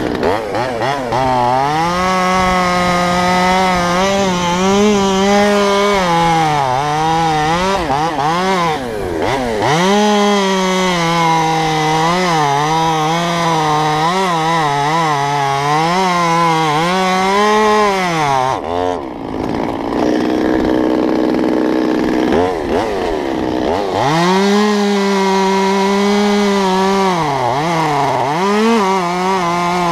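Stihl MS 200T top-handle two-stroke chainsaw cutting into a cottonwood limb at full throttle, its pitch sagging and recovering as the chain bites. Just past halfway it drops to idle for a few seconds, then revs up and cuts again before easing off near the end.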